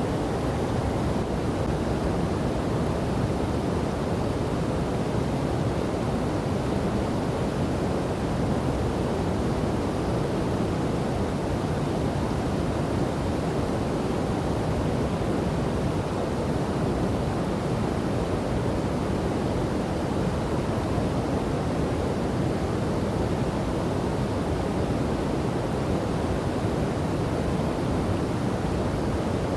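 Steady, deep rush of a river and waterfall, even and unbroken.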